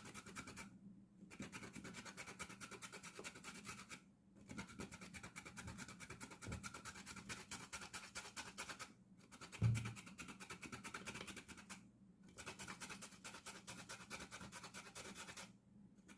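Rapid, repeated scraping or rubbing strokes in runs of a few seconds, broken by short pauses, with one dull thump about ten seconds in.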